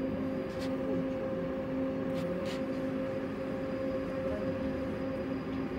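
A tram in motion, heard from inside the car: a steady electric hum with a low rumble, and a few short sharp clicks.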